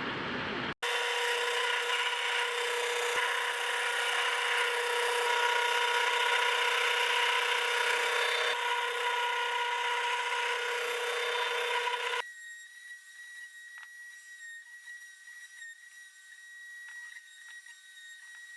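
A power tool cutting or working wood: a loud steady whine over a rough hiss that lasts about eleven seconds. It cuts off abruptly into a much quieter thin high whine with light scraping and clicks.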